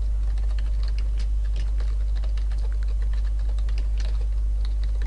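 Typing on a computer keyboard: a quick, irregular run of keystroke clicks, over a steady low electrical hum.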